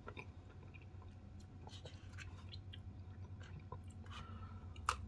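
A person chewing a mouthful of Blizzard soft serve with frozen Reese's peanut butter cup pieces and graham cracker crust, giving faint, scattered mouth clicks and crunches. There is one sharper click near the end.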